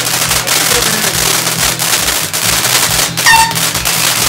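Fireworks going off at close range from ground level: a dense, continuous run of rapid pops and crackles. A short high whistle cuts through about three seconds in.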